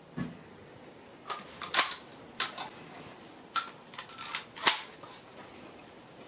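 A series of sharp metallic clicks and clacks, with two louder clacks near the middle: a Remington 11-87 20 gauge shotgun's action being worked by hand. The shotgun is having cycling malfunctions with Winchester AA 1 oz loads.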